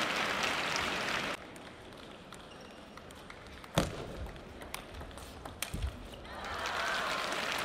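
Crowd noise from spectators, applause and cheering, cuts off abruptly about a second in. Then comes a table tennis rally: a few sharp clicks of the ball on paddles and table, the loudest just before the middle. Crowd applause swells again near the end as the point is won.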